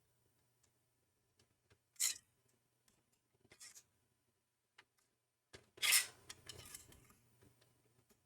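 A hand tool tightening a CPU heatsink's mounting screws down to their stops. There are three short metallic scrapes, about 2, 3.5 and 6 seconds in, with a few faint clicks between them.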